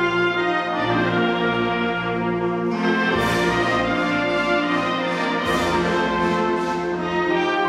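Wind band of clarinets and brass with sousaphones playing a Christmas pastorale in long held chords; about three seconds in the music grows brighter and fuller, with a shimmer of high notes added.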